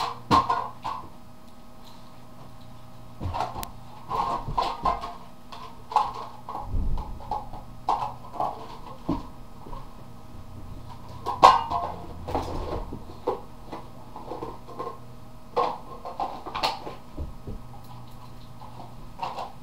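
Two boxer dogs playing rough: irregular thumps, knocks and scuffling of paws and bodies, with the loudest knocks at the very start and about eleven seconds in.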